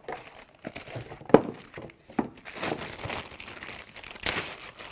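Cardboard packaging and a plastic bag handled during unboxing: a few sharp knocks and scrapes as the unit and its cardboard insert come out of the box, then crinkling of the clear plastic bag wrapped around the device through the second half.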